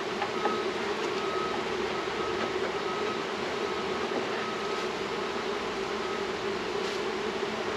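Honeybees buzzing around opened hives: a dense, steady hum of many bees.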